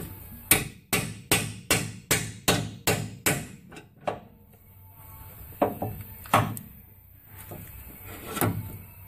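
Hammer blows on a 2007 Toyota Tacoma's front drive shaft at the differential flange, knocking it loose for removal. About ten sharp knocks come roughly two and a half a second, each ringing briefly, followed by a few scattered knocks.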